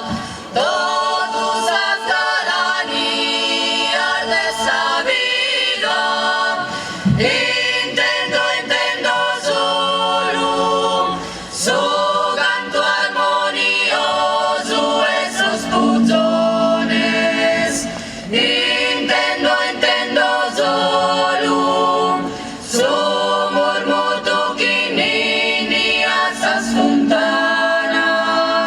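Sardinian vocal group singing a cappella in close harmony, several voices held over a steady drone, in phrases of a few seconds with short breaks for breath.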